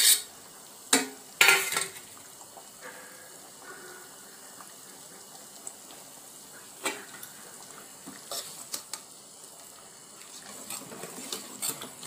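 Metal clanks of an aluminium cooking pot being handled, loudest in the first two seconds, over a fish gravy bubbling at the boil. A few ladle knocks against the pot come near the end as the gravy is stirred.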